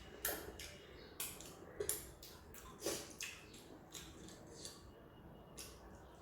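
Close-miked eating sounds: irregular wet mouth clicks, smacks and chewing, a few louder ones about a second and two seconds in and near three seconds.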